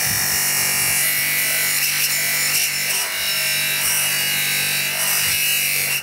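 Bench grinder running steadily, with the Sanglas engine's metal side cover pressed against its abrasive polishing wheel, giving a continuous rubbing hiss over the motor's hum.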